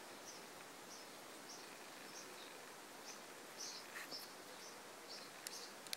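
Faint steady hiss with short high-pitched chirps repeating roughly twice a second, and a sharp click near the end.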